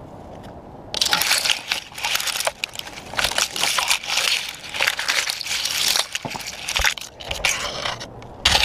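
Conifer branches and needles scraping and crackling close to the helmet camera as a climber pulls himself up through the crown, with dry twigs snapping. The noise comes in irregular bursts from about a second in, and the loudest crack falls near the end.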